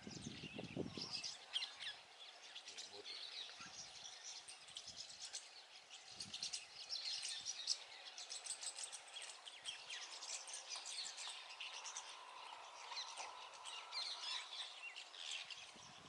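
Rosy starlings chattering: a dense, continuous stream of short, high chirps and squeaky whistled notes.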